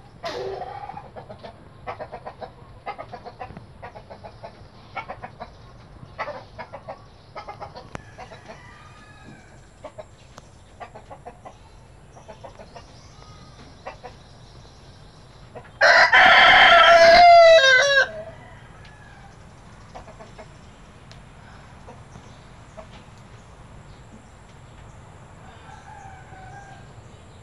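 Rhode Island Red chickens feeding: short, soft clucks repeat through the first twelve seconds or so, then a rooster crows once, loud, for about two seconds, a little past the middle.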